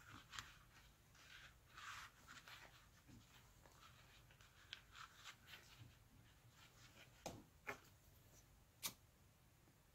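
Faint scratching and rustling of hand work on seat-cover material, with three sharp clicks in the last few seconds.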